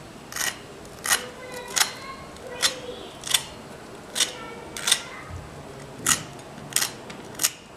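A fork breaking into a crisp deep-fried poha-and-potato cheese ball: about ten short, sharp crunches of the fried crust, each under a second apart.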